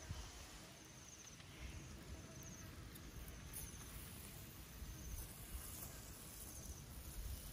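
Quiet open-air ambience: an insect chirping in short, high trills that repeat every second or two over a faint low rumble.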